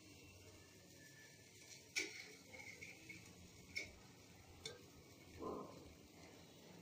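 Near silence: room tone with three faint, sharp clicks spread through the middle and one soft brush of noise near the end.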